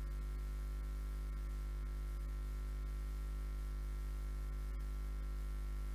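Steady electrical mains hum with a faint hiss from an idle PA sound system, unchanging throughout with no other sound.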